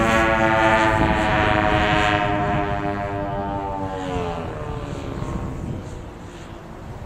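Twin engines of a giant-scale model Bristol Beaufighter in flight, a steady propeller drone. Its pitch drops about four seconds in as the model passes by, and it fades away.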